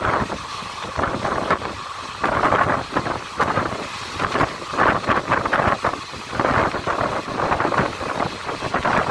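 Passenger train coach running at speed, the wheels rumbling and clattering on the track, with wind buffeting the microphone in uneven gusts.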